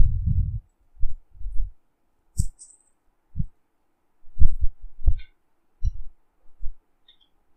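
Irregular low, muffled thumps, about a dozen, with a few faint clicks among them.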